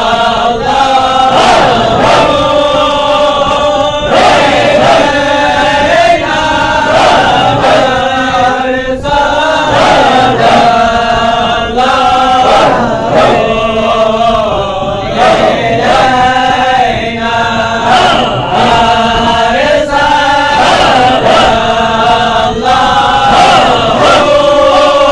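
A group of men chanting Halara dhikr in unison, loud and rhythmic, with a steady pulse a little faster than once a second.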